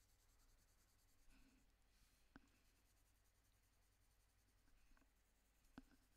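Faint scratching of a Prismacolor Premier coloured pencil shading on Fabriano toned paper, with two soft clicks, one mid-way and one near the end.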